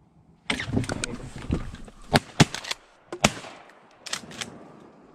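A rapid volley of shotgun blasts from several hunters firing at incoming ducks. It starts about half a second in, with a dozen or so shots in quick succession over about four seconds, the loudest in the middle.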